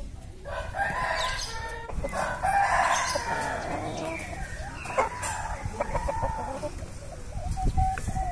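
Roosters crowing and clucking. A long crow begins about half a second in, followed by shorter calls.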